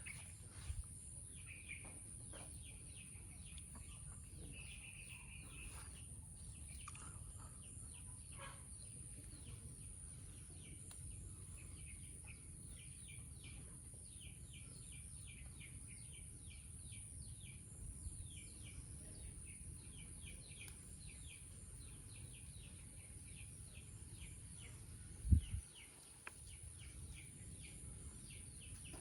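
Small birds chirping, with a quick run of many short falling notes through the middle, over a low steady rumble and a thin steady high hiss. A single thump about 25 seconds in is the loudest sound.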